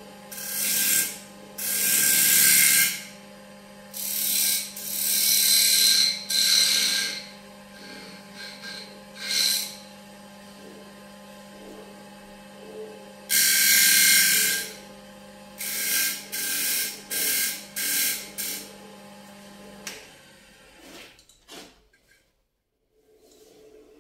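Wood lathe running with a steady motor hum while a turning tool cuts a spinning walnut plate. The cutting comes in repeated loud, hissing scraping passes of one to three seconds each. Near the end the lathe is switched off and the hum stops.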